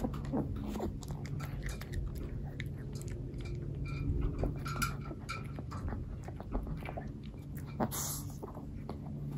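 Yorkshire terrier chewing treats, with irregular crisp crunches as it bites down on them.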